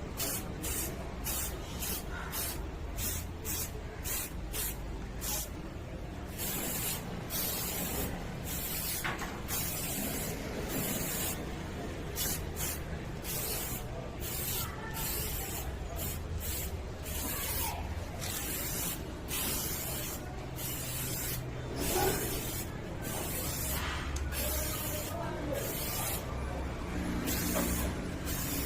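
Spray paint hissing from a nozzle in many short on-and-off passes, each lasting about a second, over a steady low hum.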